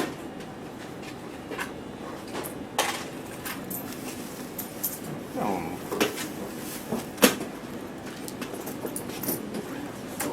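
Supermarket background noise with a few sharp knocks and clatters, the sharpest about seven seconds in, and faint voices in the middle.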